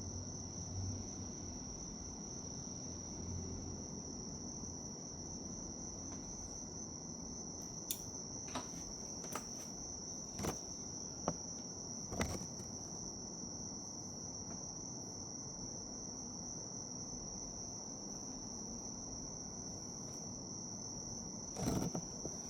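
Japanese bell crickets (suzumushi) singing, a steady high-pitched ringing chirr. Several short sharp clicks come between about eight and twelve seconds in, with another brief knock near the end.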